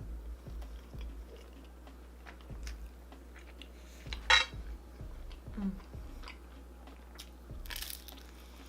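Close-miked chewing of cheesy pizza: soft wet mouth sounds and small clicks. There is a sharp, loud click about four seconds in and a brief hiss near the end.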